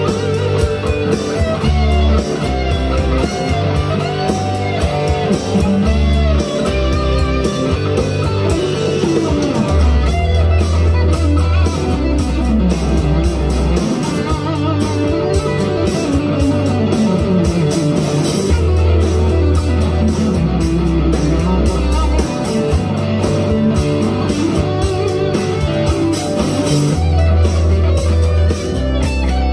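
Firefly FFLPS Les Paul–style electric guitar played through an amp, lead lines with string bends over a backing track with a low bass part.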